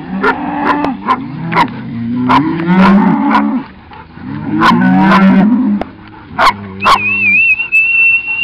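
Highland cattle mooing, several long low calls one after another, with sharp knocks about once a second. A thin, high, wavering whistle-like tone comes in near the end.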